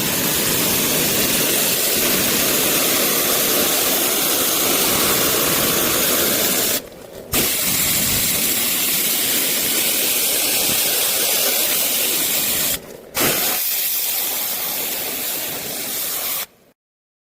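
High-pressure water spray washing the parts of a heavily soiled system air conditioner: a steady loud hiss that stops briefly twice and cuts off near the end.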